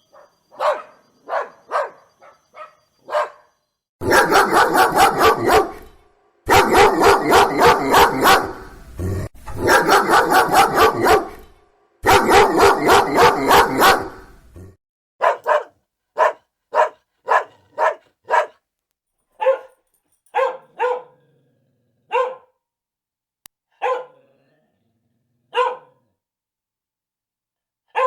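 Dog barking: a few separate barks, then a loud stretch of rapid, nonstop barking lasting about ten seconds that breaks off abruptly several times, as if spliced, then single barks spaced about a second apart and thinning out.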